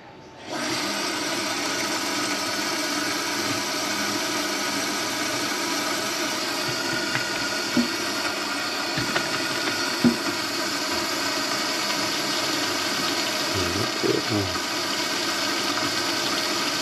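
Electric drain-cleaning machine switched on and running steadily, its motor whining as the spinning cable works through a grease clog in the kitchen drain line, with a few sharp knocks along the way.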